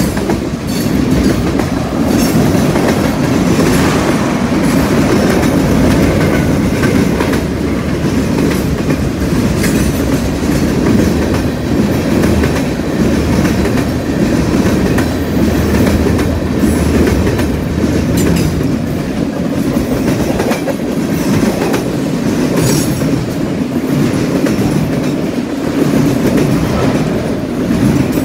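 CN freight cars rolling past, their steel wheels clattering over the rail joints and the junction switch, with a steady rumble and a few sharp clicks at irregular intervals.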